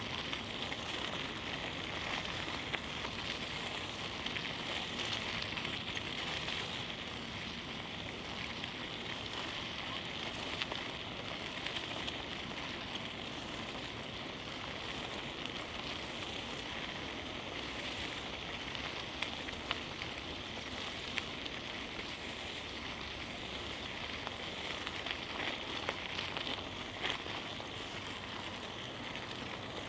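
Steady crackling hiss of riding a bicycle, with scattered light clicks.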